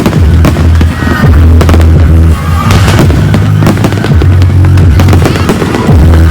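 Fireworks going off in quick succession, sharp bangs and crackling, over loud music with a heavy, steady bass.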